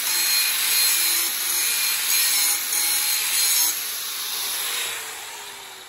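Angle grinder with an abrasive disc grinding a slight land onto the beveled edge of a 3/8-inch steel plate. About three and a half seconds in it is switched off and spins down, its whine falling as it slows.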